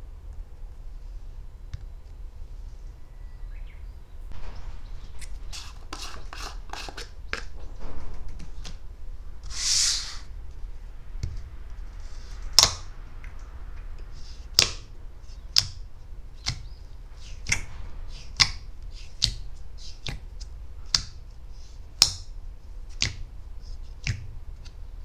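Butter slime being handled: crackly clicks and a brief hiss, then a series of sharp clicks and pops about once a second, over a low steady hum.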